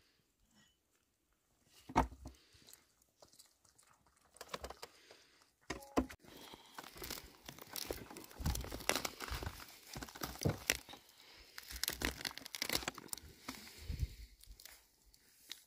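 Roast food being torn apart by hand: irregular tearing, crackling and crunching, sparse at first with a sharp knock about two seconds in, then dense and continuous from about six seconds in.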